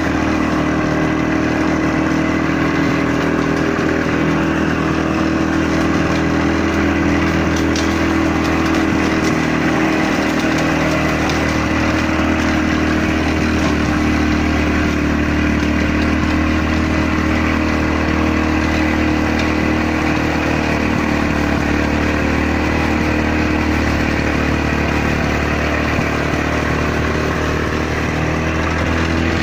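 A 1974 Victa Sports 160cc two-stroke lawnmower engine running steadily as the mower is pushed across grass, mowing.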